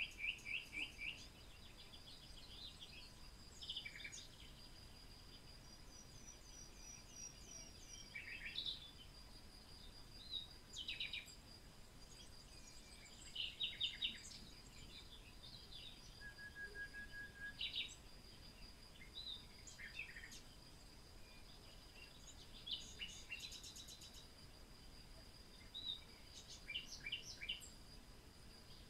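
Birdsong: several birds calling in short chirps and quick trills, scattered irregularly, over a thin steady high tone.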